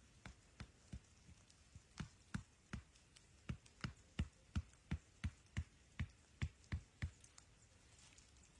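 A run of dull, evenly spaced knocks, about three a second for some five seconds, after a few scattered knocks at the start.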